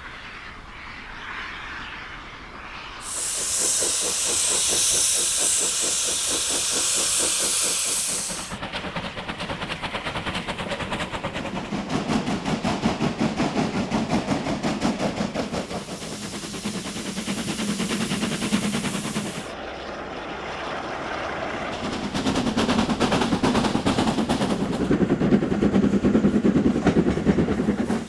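Steam locomotives: a loud hiss of escaping steam lasting about five seconds, then rapid, regular exhaust beats of locomotives working. These change abruptly a couple of times as the shots cut.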